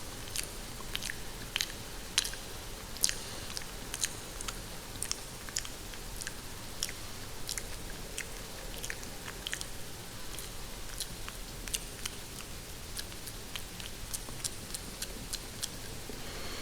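Close-miked ASMR chewing and biting on hair: a run of sharp, crisp mouth clicks and crunches at an uneven pace. Under it runs a steady hiss of rain falling on a greenhouse.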